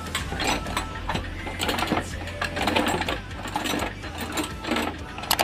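Rapid, irregular metallic clicking and clinking of hand tools and metal parts being worked on a motorcycle, over a low steady hum.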